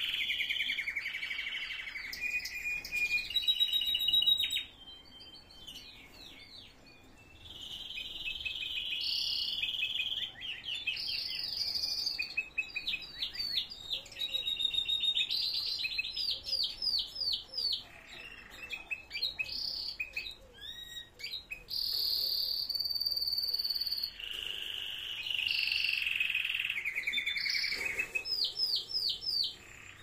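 Canaries singing: long rolling trills and fast runs of repeated chirps, with a pause of a few seconds about five seconds in.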